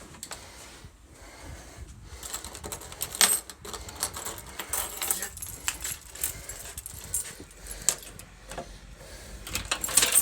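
Irregular light rattling and clicking, with sharper clicks about three seconds in and again near the end.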